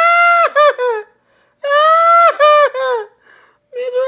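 A high-pitched voice in two drawn-out, sung-sounding phrases. Each starts with a long held note and ends in a few quick syllables, with a short gap between the phrases.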